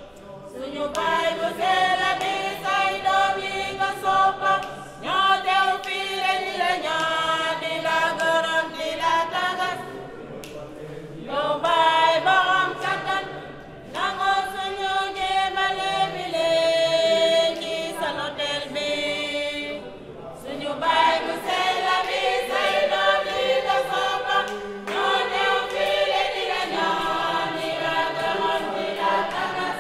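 Church choir singing a sacred hymn a cappella, many voices together in sung phrases broken by brief pauses every few seconds.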